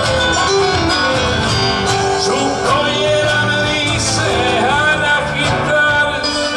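Live Cuyo folk music, a gato, played on guitars, with a voice singing over it partway through.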